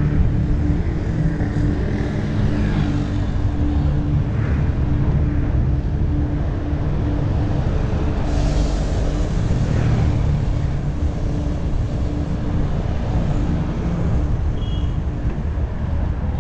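Road traffic heard from a moving bicycle: cars, vans and a bus running close alongside over a steady low rumble. A brief hiss comes about eight seconds in as a bus passes close, and a short high tone sounds near the end.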